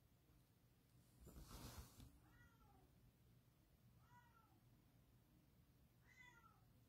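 A house cat meowing three times, faint and distant, each call falling in pitch: she is screaming at the front door to be let out into the hallway. A brief rustle comes about a second in.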